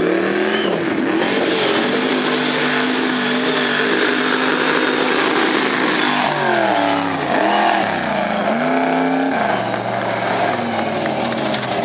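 Mud-bog truck's engine running hard at high revs through the mud pit. About six seconds in, the revs drop and climb sharply several times as the truck launches over the mound.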